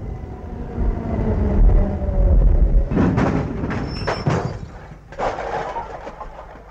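Tram running with a steady whine over a low rumble, then a crash about three seconds in as it hits a lorry loaded with wooden crates, followed by several more bangs and the clatter of crates and their contents spilling onto the cobbles.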